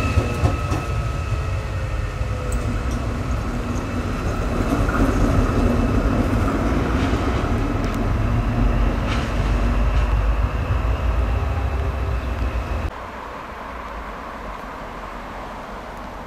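A Captrain Stadler Eurodual locomotive running light past the track and away, with a heavy low rumble, steady high-pitched whining tones and a few sharp clicks. After about thirteen seconds the sound cuts off abruptly to a much quieter steady background.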